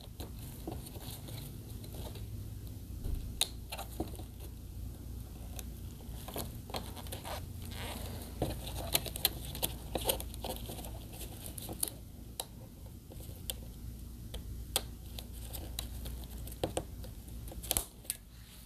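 Scattered small clicks, taps and rustles of hands handling tape and the TV's panel connector, irregular throughout, over a steady low hum.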